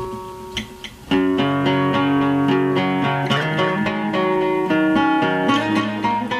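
Background music of plucked guitar, played in chords. It softens briefly at the start, then comes back fuller with lower bass notes about a second in.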